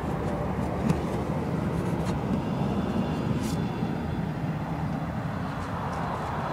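A vehicle engine idling steadily, a low hum, with one sharp click about a second in.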